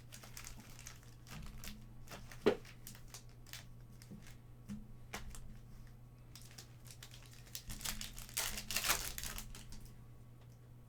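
Plastic trading-card pack wrapper crinkling and tearing open, with irregular rustles and clicks as the cards are handled; one sharp click about two and a half seconds in and a denser burst of crinkling about eight seconds in.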